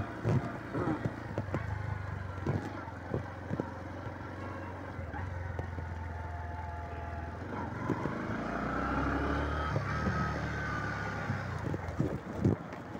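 Bajaj Platino 110's single-cylinder four-stroke engine running while riding, a steady low hum that swells for a couple of seconds about eight seconds in.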